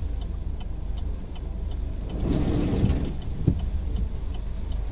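Car interior in heavy rain: a steady low rumble from the engine and road. About two seconds in, a swell of tyre hiss and splashing comes from a car passing alongside on the flooded road, and a single click follows.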